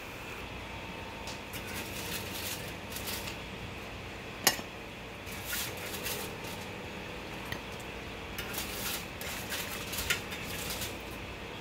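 Aluminium foil crinkling and a metal fork scraping and clinking on a baking tray: a run of short crackles and clicks, with one sharp clink about four and a half seconds in.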